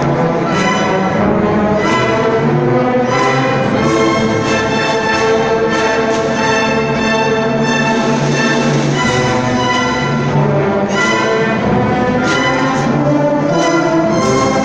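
Symphony orchestra playing classical music live, brass and strings together in sustained, full chords.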